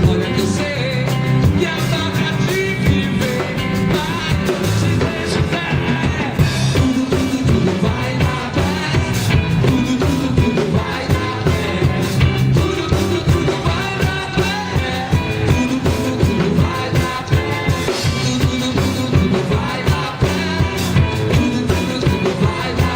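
Live band playing a reggae song with a steady beat.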